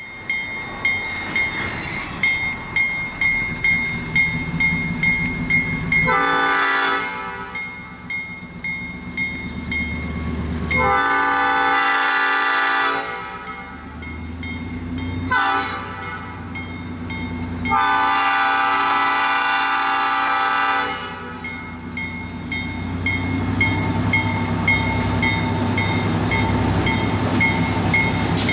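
End-cab diesel switcher locomotive sounding its horn for a grade crossing: two long blasts, a short one, then a long one. A bell rings steadily at about two strokes a second underneath, and the diesel engine's rumble grows louder near the end as the locomotive and its cars pass close.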